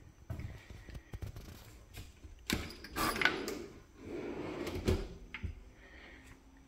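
A soft-close kitchen cabinet drawer slid open and then pushed shut again, with a knock at each end of the travel, about two and a half seconds in and again near five seconds.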